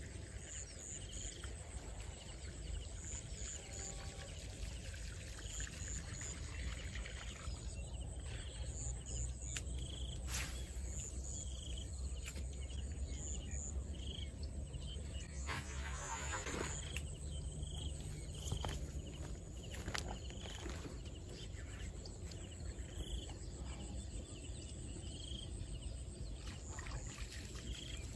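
Outdoor ambience: a steady low rumble with short high chirps repeating every second or so, scattered light clicks, and a brief rushing hiss about halfway through.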